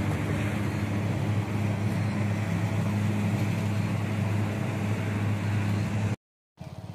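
An engine running steadily at a constant low pitch, a deep hum under a rough haze of noise. It cuts out abruptly about six seconds in.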